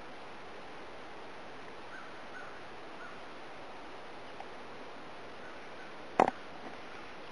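Steady outdoor background hiss with a few faint, short bird calls, then a single short, sharp knock about six seconds in.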